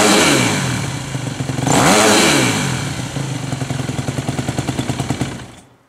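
2012 Yamaha YZ 250 F four-stroke single-cylinder engine running through a LeoVince X3 stainless/titanium full exhaust system, blipped twice: one rev at the start and another about two seconds in, each falling back. It then idles with an even pulse until the sound fades out near the end.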